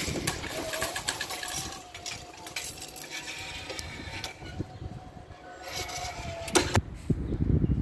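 Level-crossing barrier boom with a hanging metal lattice skirt rising, its drive humming at one steady pitch while the skirt's metal links rattle and clink. A sharp clack near the end as the boom stops.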